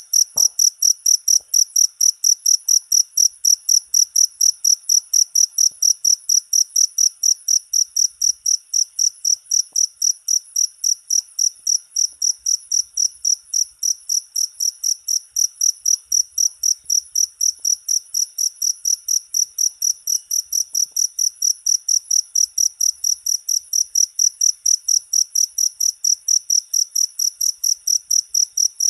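A cricket chirping in a steady, even rhythm of about three or four high-pitched chirps a second.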